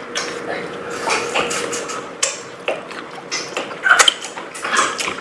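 Close-up eating and food handling: irregular clicks, crackles and light clatter of shellfish and utensils, loudest about four seconds in.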